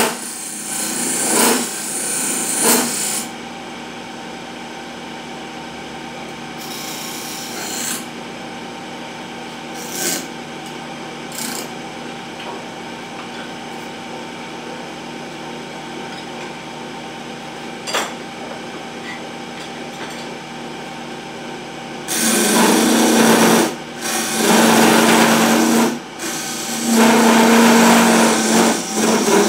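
Electric wood lathe running steadily with a motor hum while the spinning wooden spindle is worked by hand, giving scratchy rasping bursts: a few short ones early on and longer, loud ones in the last several seconds.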